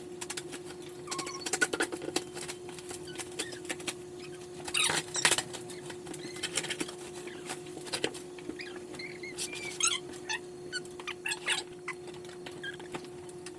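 Speaker carton and packaging being handled and opened: scattered clicks, rustles and a few short squeaks over a steady hum.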